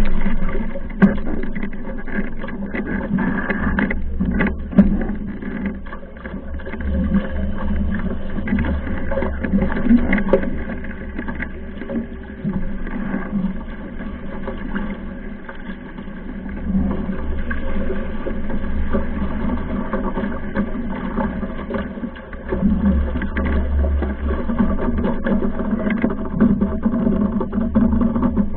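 Wind buffeting the microphone and water rushing past a Mach2 Moth foiling dinghy at speed in strong wind, swelling and easing in gusts with occasional knocks.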